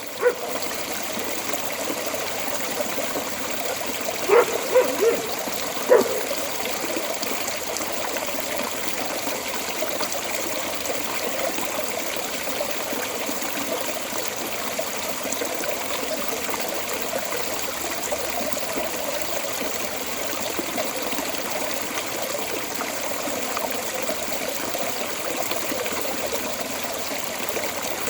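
Water running steadily out of a storm drain outlet, a continuous trickling flow. A few short barks from a dog stand out over it between about four and six seconds in.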